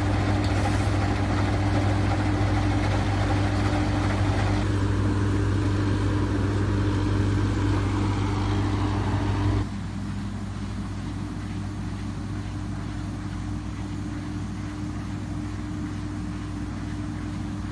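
A machine's motor running with a steady hum. The sound changes abruptly about five seconds in and drops to a quieter, steady hum about ten seconds in.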